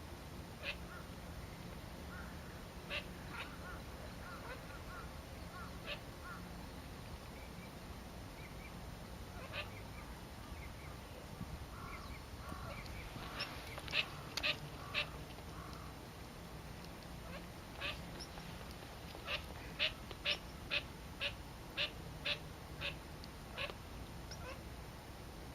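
Eurasian coot calling: short, sharp single notes, scattered at first, then a quick, evenly spaced run of about nine calls, roughly two a second, near the end.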